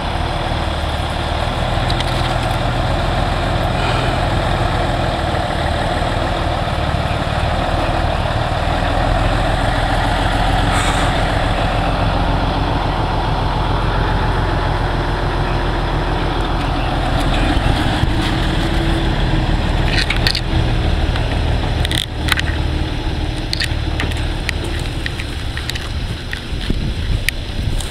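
Heavy truck engine running steadily at a low, even rumble, with a few sharp clicks and knocks over it in the second half.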